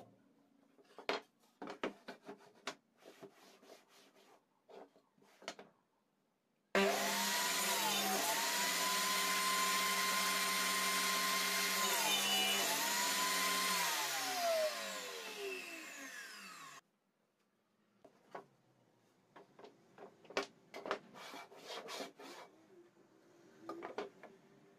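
Shop-made table saw running, starting abruptly about seven seconds in; its steady whine dips twice as the blade bites into a board pushed through on a 45-degree miter sled, then falls in pitch as the blade winds down, cutting off sharply. Before and after, wooden knocks and taps as pieces are set and slid on the saw table.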